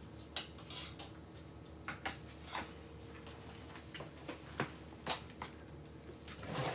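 Kitchen clatter: scattered light clinks and knocks of dishes and utensils being handled, the loudest a little after five seconds in.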